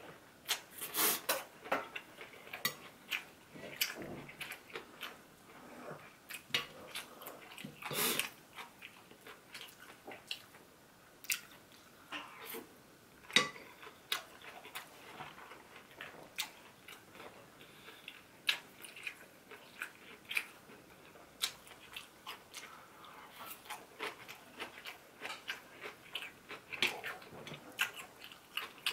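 Close-miked chewing of crispy deep-fried battered pork in sweet-and-sour sauce (tangsuyuk): irregular crunches and bites with wet chewing in between.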